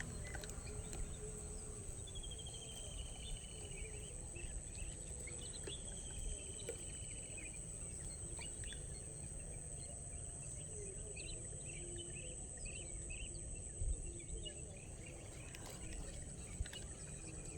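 Outdoor ambience of a steady, high-pitched insect drone with scattered bird chirps, including a short falling trill a couple of seconds in.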